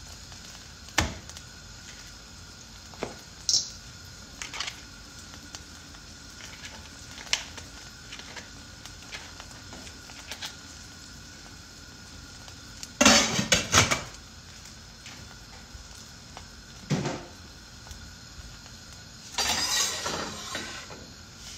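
Kitchen clatter of pots, pans and utensils being handled on a counter: scattered clinks and knocks, a burst of loud clattering about two thirds of the way in, and a longer rattle near the end, over a faint steady tone.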